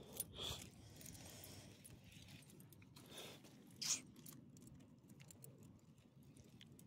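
Faint scattered clicks and crunches of small dogs stepping about on gravel, with a light metallic jingle of a collar tag; the sharpest click comes about four seconds in.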